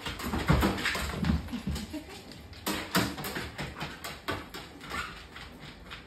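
A dog's paws thumping and clicking on a treadmill deck: a run of irregular footfalls and knocks as it climbs onto the treadmill and walks on the belt.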